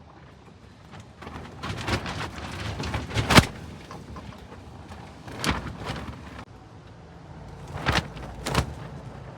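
Strong gusty wind, with several sharp bangs and rattles of things being knocked about by it. The loudest bang comes about three seconds in, and there are more near the middle and toward the end.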